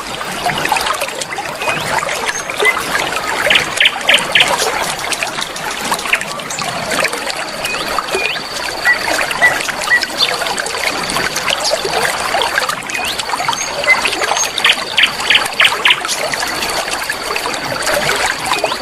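River water flowing and trickling over stones, steady throughout. Birds call over it: a quick run of short chips about four seconds in and again about fifteen seconds in, scattered single chirps, and a thin steady high tone from about seven seconds on.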